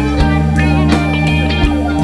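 Background music: guitar over held bass notes, with a regular beat.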